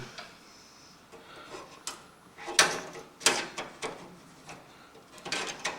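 Thin metal motherboard I/O shield scraping and clicking against the computer case's rear opening as it is pushed into place, in several short bursts; the loudest come about two and a half and three and a quarter seconds in.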